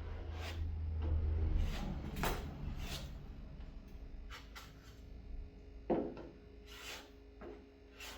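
Hand sanding of body filler on a car body panel: irregular scraping strokes of abrasive paper rubbing over the filler, with a low hum under the first couple of seconds.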